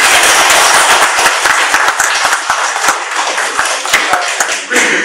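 Audience applauding: dense, steady clapping from a room full of people.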